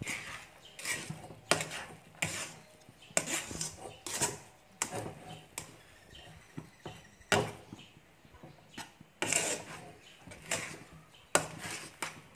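A spatula scraping and knocking against a wok as it stirs and folds a thick mass of sticky glutinous rice, about one stroke a second, with a quieter stretch about halfway through.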